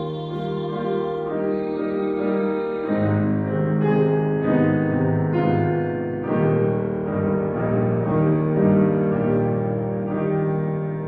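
Piano playing classical music: sustained chords and a melodic line, the piano part of a classical art song.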